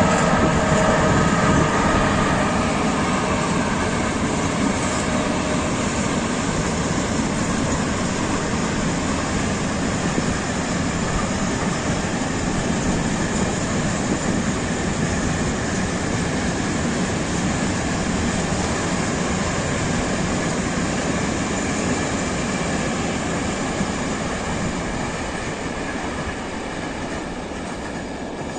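Freight train of tank wagons rolling past: a steady, dense rumble of wheels on rail that slowly fades near the end as the last wagons go by. A few steady tones fade out during the first few seconds.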